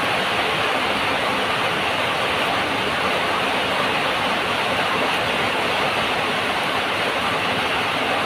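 Heavy rain pouring down: a loud, steady, even hiss with no letup.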